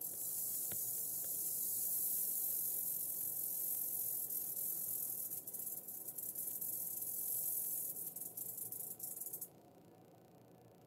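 Western diamondback rattlesnake rattling its tail: a steady, high buzz that starts suddenly, wavers toward the end, and cuts off after about nine and a half seconds.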